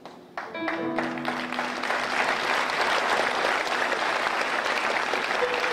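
Church congregation applauding in response to the sermon, the clapping swelling about a second in and holding steady.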